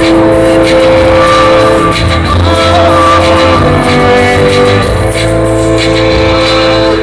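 Rock band playing live and loud: long held chords over a steady bass line and drums.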